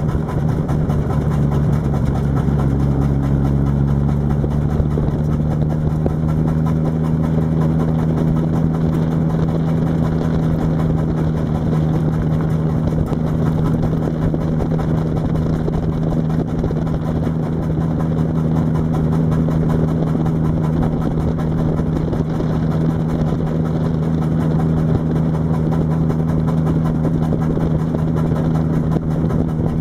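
Race car's engine running steadily at low, even revs, heard from inside the caged cabin. The pitch settles slightly in the first few seconds and then holds.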